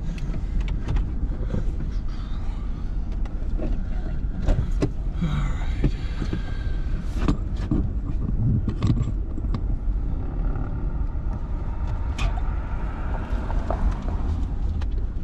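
Car driving: a steady low rumble of engine and road noise, with scattered clicks and knocks.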